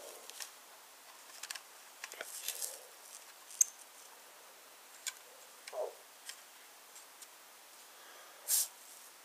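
Scattered small clicks, taps and rustles of a plastic model trolley being handled and turned over in the fingers, with one sharp click a few seconds in and a brief rustle near the end.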